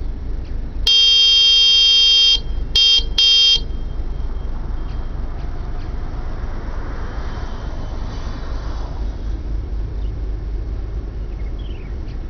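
A lake freighter's horn sounding one long blast of about a second and a half, then two short blasts, the long-short-short salute Great Lakes freighters give. A steady low rumble runs underneath.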